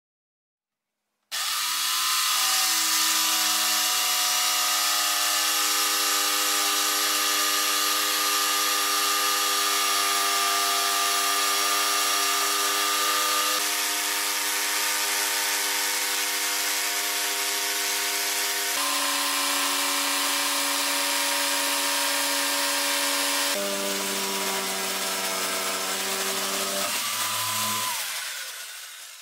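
Bosch PST 650 corded jigsaw starting up about a second in and running steadily as its blade saws through a thick pine board, its motor whine shifting in pitch several times during the cut and winding down near the end.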